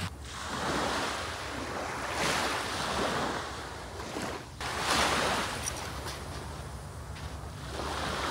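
Rushing noise of wind and lapping water, swelling and easing every second or two, with brief sudden drops near the start and about four and a half seconds in.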